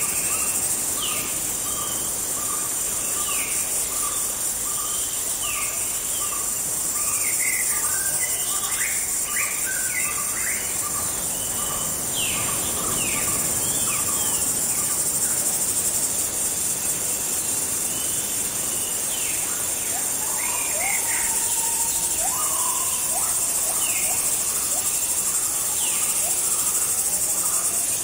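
Tropical forest ambience: a steady, high-pitched insect drone under many short, downward-sweeping bird chirps, with one bird repeating a short note at an even pace through the first half.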